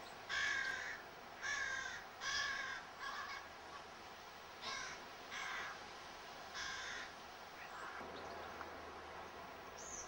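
A crow cawing repeatedly: about seven calls spread over the first seven seconds, some coming in quick pairs, after which the calling stops.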